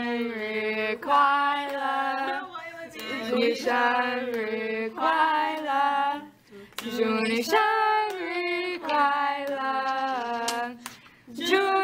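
Female voices singing a simple melody in held phrases of a few seconds each, with short breaks between the lines.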